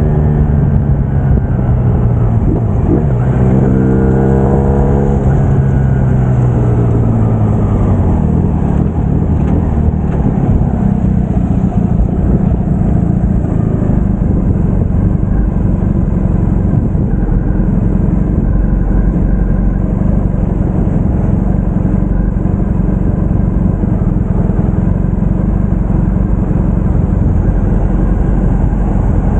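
Braaap Moto4 motorcycle engine slowing down, its note falling in steps over the first several seconds as the bike decelerates. It then idles steadily while stopped.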